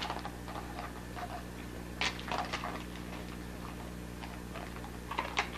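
Dogs rooting through torn wrapping paper: scattered crinkles and clicks, bunched about two seconds in and again near the end, over a steady low hum.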